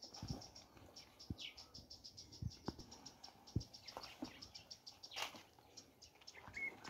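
Footsteps through a leafy garden plot, soft thuds about once a second, with a rapid high chirping, several chirps a second, that stops about two-thirds of the way through.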